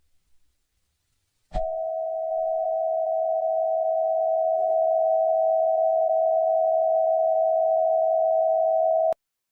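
A click, then a steady single-pitched electronic tone that holds for about seven and a half seconds and cuts off suddenly near the end.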